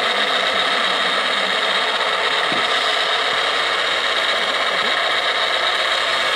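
Radio-controlled scale model truck driving, its drive making a steady mechanical running sound at an even level.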